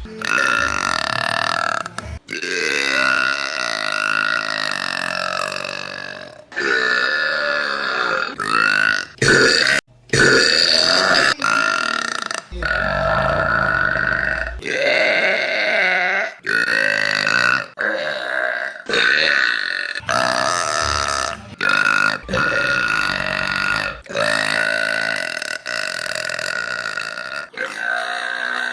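A woman burping loudly, a long string of drawn-out burps one after another, several of them lasting two to four seconds, with abrupt cuts between them.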